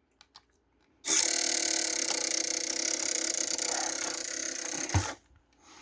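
Small electric motor and plastic gearing of a remote-control Freightliner semi truck whirring steadily for about four seconds, then stopping with a short knock.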